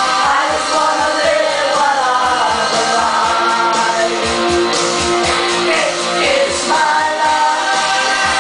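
A group singing loudly into handheld microphones over an amplified rock backing track with a steady drum beat, in the manner of karaoke.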